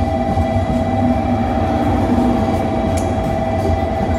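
A train running with a steady low rumble and a constant whine over it, with light clicks in the second half.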